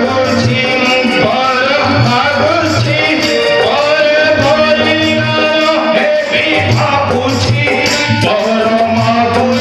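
Live music accompanying a folk stage drama: a melody line over a steady drum beat, with high ticks keeping time.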